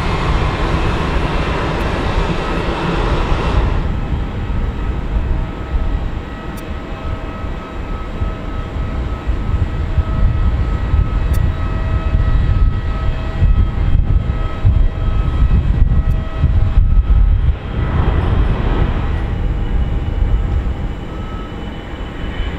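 Airbus A320-family jet airliner engines on the runway: a steady low roar with a held whine, changing abruptly about four seconds in and again near the end as a different aircraft is heard.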